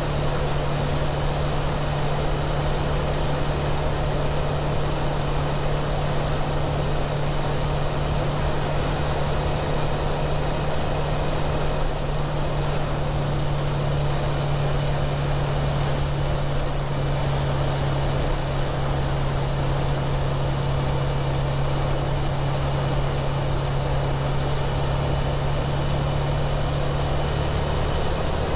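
2017 Suzuki V-Strom DL650's 645 cc V-twin engine running through its stock muffler at a steady speed under way, a constant low engine note that holds the same pitch throughout.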